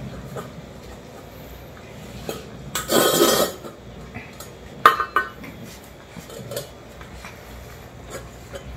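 Stainless steel food bowls clattering on a concrete floor as cats eat canned wet food from them: a longer clatter about three seconds in, then a sharp metallic clink near five seconds, with smaller knocks between.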